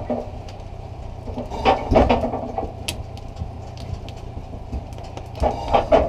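Small metal box wood stove being shifted and set down on a plank floor: a few knocks and scrapes, loudest about two seconds in and again near the end, over a steady low hum.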